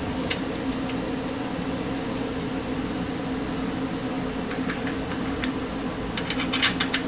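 A steady mechanical hum from a running fan or air unit, with a few light metal clicks near the end as the brake caliper is handled and seated on the UTV's front hub.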